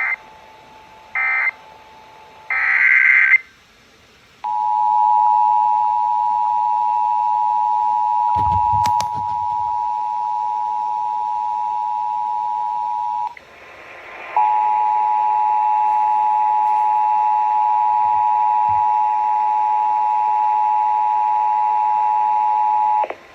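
Emergency Alert System tones on a radio broadcast during a required monthly test. Three short, raspy SAME digital data bursts are followed by the steady two-tone attention signal, 853 and 960 Hz sounding together. The tone stops about 13 seconds in and starts again a second later, now over a hiss, for about nine seconds more. A single click is heard about nine seconds in.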